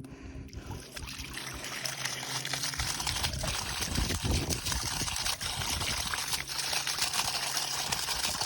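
Water running and splashing steadily from a line that has just been turned on, a steady hiss that builds up about half a second in.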